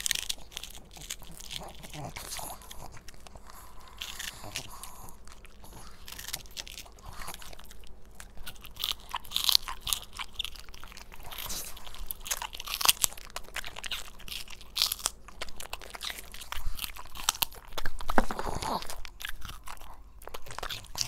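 Pugs biting and chewing raw celery sticks, a long run of irregular crunches close to a clip-on microphone.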